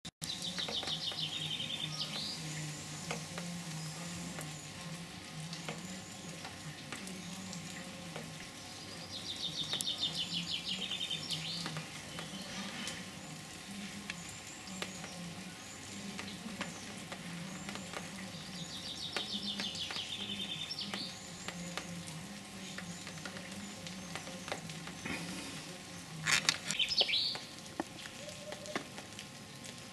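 Red squirrel gnawing at a hazelnut shell: a faint, steady crackle of small clicks. Over it a songbird sings a short trilled phrase three times, about ten seconds apart, with a low steady hum beneath and a louder burst of calls and clicks near the end.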